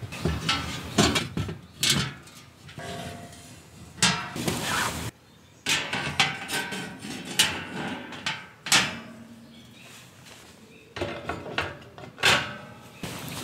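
GoossTepee Cielo black steel folding camping table being unfolded and assembled: a series of metal clanks, clicks and knocks, some ringing briefly, as its legs and slotted steel shelf panels are fitted, with a longer scraping rattle about four seconds in. Near the end comes a knock as a wooden cutting board is set on the steel top.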